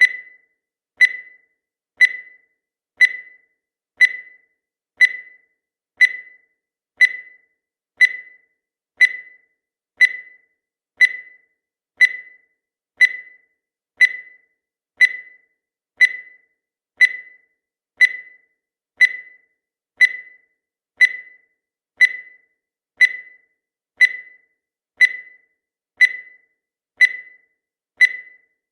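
Countdown timer ticking once a second: a short, sharp high tick that dies away quickly, evenly repeated.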